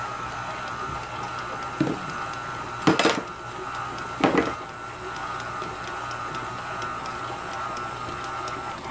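KitchenAid Artisan stand mixer running steadily with a hum and a constant whine as it works bread dough with flour being added. A few sharp knocks come about two, three and four seconds in.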